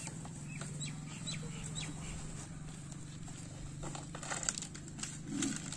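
A few short bird chirps over a steady low hum, then a sack rustling and crinkling in several quick bursts from about four seconds in.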